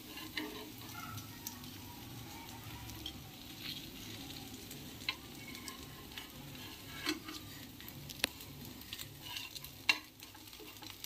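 Rava dosa frying with a faint sizzle on a hot flat pan, with scattered scrapes and taps of a metal spatula as it is slid under the dosa and folded over.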